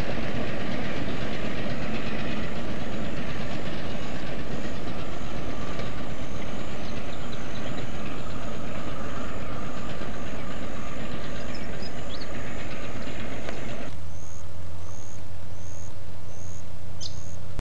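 WAGR 'A' class diesel locomotive running as it hauls a train of flat wagons along the line, a steady engine rumble and roar. About 14 seconds in it cuts off abruptly to a steady low hum.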